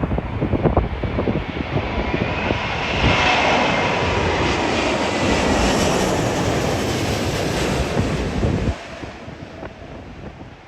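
Airliner's engines whining as the plane passes close on its landing approach, the pitch slowly falling, with gusty wind buffeting the microphone. The engine sound drops away abruptly about nine seconds in.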